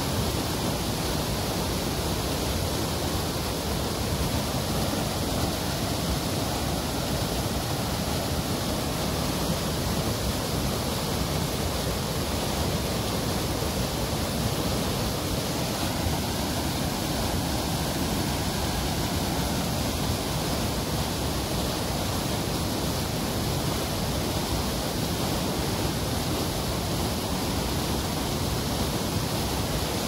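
Waterfall: falling water rushing in a steady, unbroken wash of noise spread from deep rumble to high hiss, never changing in loudness.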